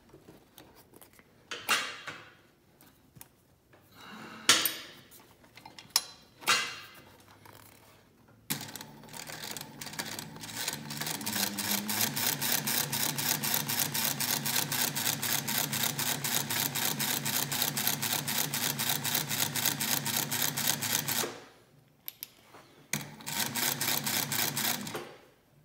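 Techsew 2600 industrial sewing machine stitching through leather in a fast, even run of stitches lasting about twelve seconds, then a short second run near the end. A few scattered knocks and clicks come before the sewing starts. This is a test sew right after re-timing the needle bar and hook, and the machine runs evenly.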